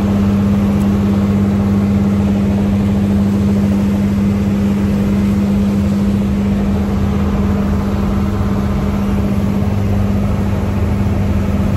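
Car ferry's engines running with a steady low drone: a strong even hum under a rushing noise, unchanging throughout.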